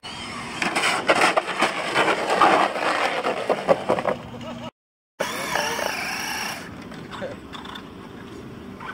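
Radio-controlled drift car running hard: its motor whines and its tyres scrabble on asphalt. The sound cuts off abruptly a little over four and a half seconds in, then picks up again with a brief wavering motor whine before settling to a quieter background.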